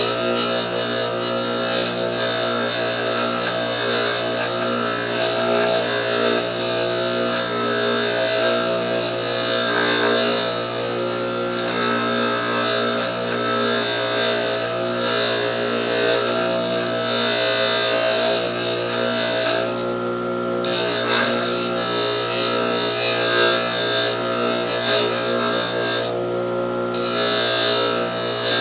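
Bench grinder motor running steadily with a hum while steel pliers are held against an abrasive fiber wheel, giving a grinding hiss. The pliers come off the wheel twice, briefly, about twenty seconds in and again about six seconds later.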